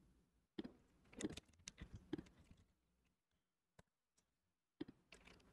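Faint computer keyboard keystrokes and clicks: a quick run of them in the first couple of seconds, then a few single clicks near the end.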